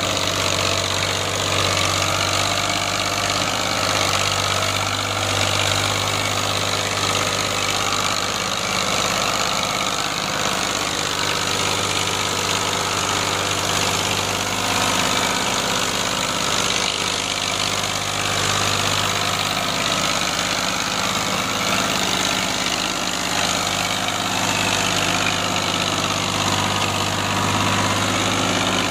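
Ghazi tractor's diesel engine running steadily while it drags a heavily loaded sugarcane trolley, the load heavy enough to lift the tractor's front wheels off the ground.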